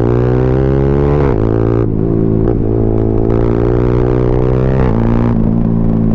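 Yamaha R15M's single-cylinder engine through a full-system Yoshimura exhaust, running under way at fairly steady revs. The note eases off and picks up a few times as the throttle is closed and reopened.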